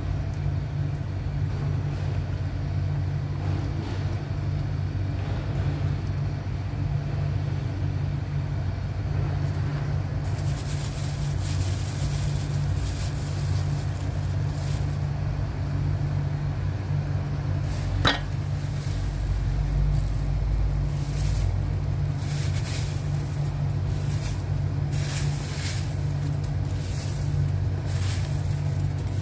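A steady low hum runs under coconut milk with chilies simmering in a wok. From about ten seconds in there is soft, irregular crackling, with one sharp click a little past the middle.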